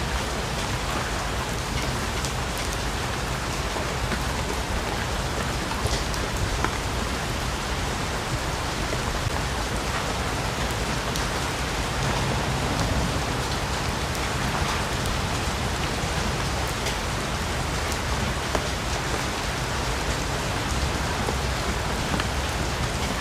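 Steady heavy rain falling in a rainforest, with scattered drops pattering on leaves.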